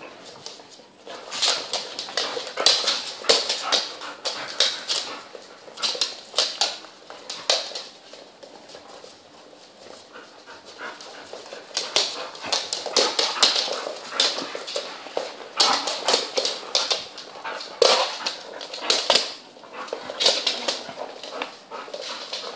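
A litter of young puppies and their American Staffordshire terrier mother at play: the puppies yip and whimper in bursts, mixed with short sharp clicks and scuffles on a hardwood floor, with a quieter stretch near the middle.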